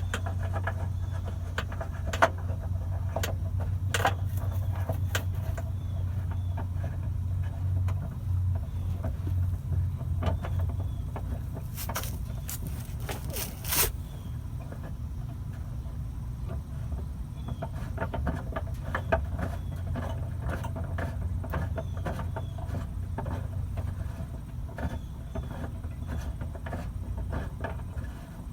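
A Dodge Caravan's underbody spare-tire winch is being cranked down by hand with the jack-handle extension, giving a run of small clicks and ticks, with a few sharper clicks about halfway through. Under it runs a low steady hum that fades out about halfway.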